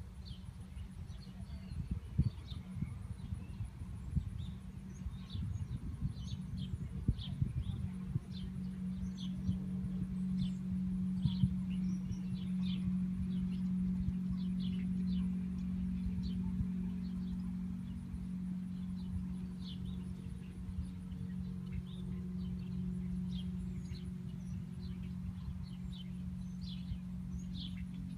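Small birds chirping, short high calls coming irregularly every second or so. A steady low hum sets in about eight seconds in and continues beneath them.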